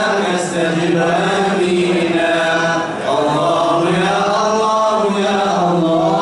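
A man's voice chanting Islamic devotional verse into a microphone, in long held, wavering melodic lines, with short breaths about half a second and three seconds in.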